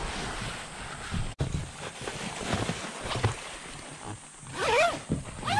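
A towel rubbing over a board's deck and the rustle of a nylon carry bag being handled. Near the end, a brief wavering cry rises and falls.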